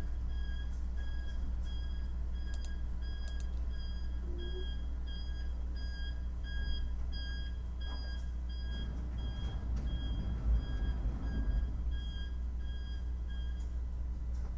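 Electronic beeper sounding a steady series of short high beeps, about two a second, that stops near the end, over a low steady hum.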